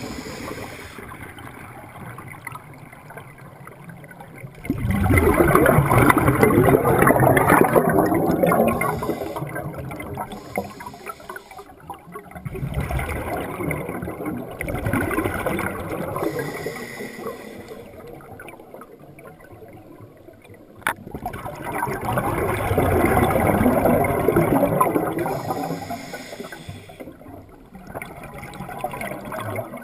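Sea water washing and gurgling in slow surges that swell and fade every several seconds, with a single sharp click about two-thirds of the way through.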